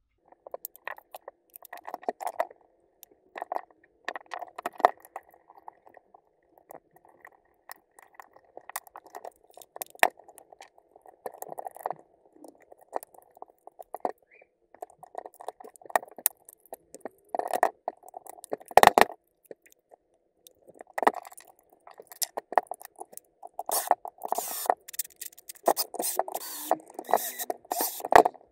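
Plastic and metal parts of a Milwaukee M18 impact driver clicking, knocking and scraping as they are handled and fitted back together during reassembly. Near the end there are louder bursts as a cordless drill drives the housing screws.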